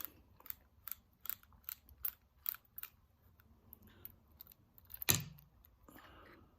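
A screwdriver working at a Phillips screw in a padlock body: a run of sharp metal clicks, about two to three a second, then fainter ticks and one louder click near the end.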